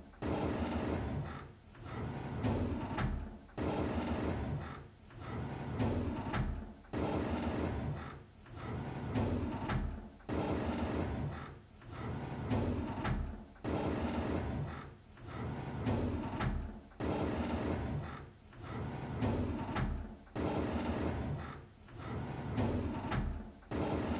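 A drawer sliding open over and over, about every second and a half to two seconds. Each slide is a rumbling scrape that fades away, and every other one begins with a sharp knock.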